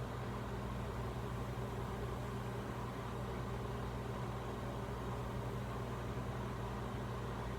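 Microwave oven running with a steady low hum and an even hiss.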